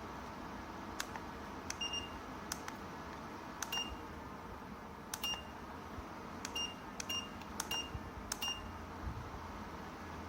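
Short electronic beeps from a fireplace-style ceramic fan heater's controls as its settings are pressed. There are about seven high beeps at irregular intervals, mixed with a few sharp clicks, over a steady faint hiss.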